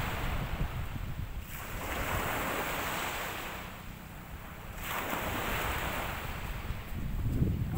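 Small sea waves washing in on the shore, the hiss of the surf swelling and fading twice, about a second and a half in and again about five seconds in. Wind buffets the microphone with a low rumble, strongest at the start and near the end.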